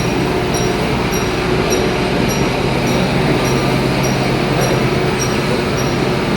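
Tea-processing machinery running steadily: a loud continuous mechanical hum and rattle, with a faint high tick repeating a little under twice a second.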